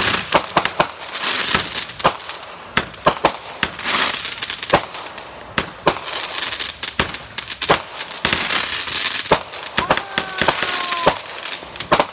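Aerial fireworks going off one after another: sharp bangs of shells launching and bursting, with crackling and hissing in between. There is a short falling whistle about ten seconds in.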